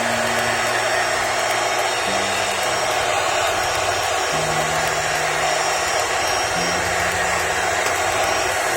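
Electric air blower running steadily, blowing air over a liquid-damaged laptop's parts to dry them out.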